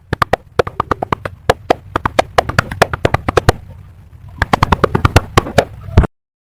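A few people clapping their hands: sharp, overlapping claps. The claps thin out briefly in the middle, pick up again, and stop abruptly near the end.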